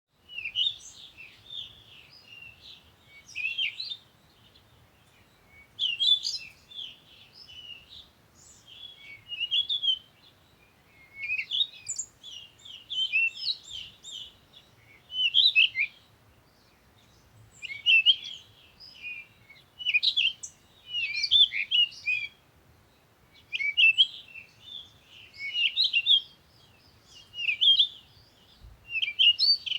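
Small songbirds chirping: bursts of quick, high twittering notes every two seconds or so, with short pauses between the bursts.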